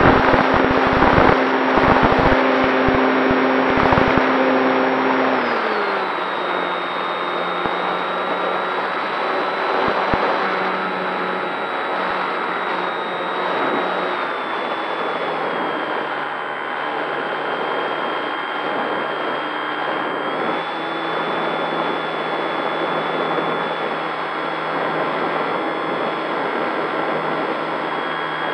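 Electric motor and propeller of a Durafly Tundra RC plane whining steadily in flight, heard from on board, with wind rushing past. The whine drops in pitch about five seconds in and shifts slightly lower and back later on; there are low thumps of wind buffeting in the first few seconds.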